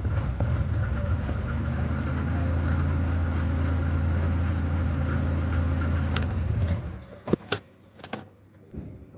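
Mercedes car engine idling steadily, then switched off about seven seconds in, followed by a few sharp clicks.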